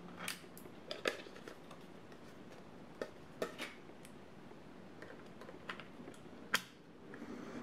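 A few scattered clicks and light taps of Corsair Vengeance DDR4 SO-DIMM memory modules being handled and pressed into a laptop's RAM slots, the sharpest click near the end as the second module is pushed down into its retaining clips.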